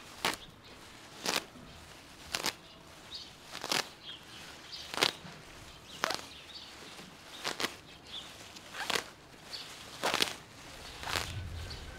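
Fresh herbs being picked by hand from the grass: about ten short, sharp tearing snaps of stems and leaves, roughly one a second.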